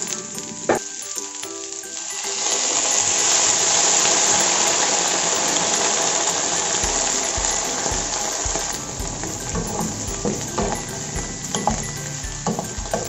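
Carrots, chayote and green beans sizzling as they are stir-fried in a frying pan and turned with a wooden spatula; the sizzle swells much louder about two seconds in, then eases, with a few sharp clicks and knocks near the end. Background music with a beat plays faintly underneath.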